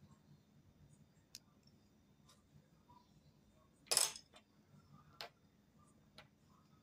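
Sparse small clicks and clinks of a bamboo pen and ink pot on a calligraphy desk, with one louder brief clatter about four seconds in.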